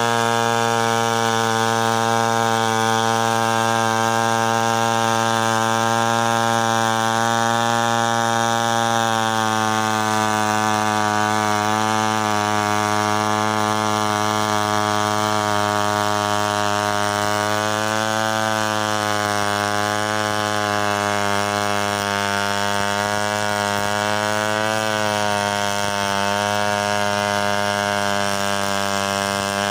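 Stihl 070 two-stroke chainsaw running at full throttle, ripping lengthwise along a coconut log. It holds one steady engine note throughout, which sags slightly a few times as the chain bites under load.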